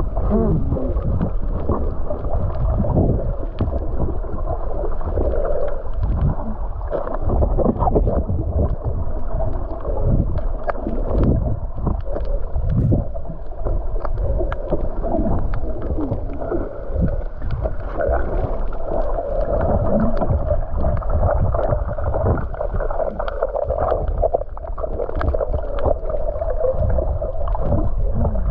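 Muffled underwater sound from a camera filming while snorkelling: water rushing and gurgling with irregular surges, and many scattered faint clicks.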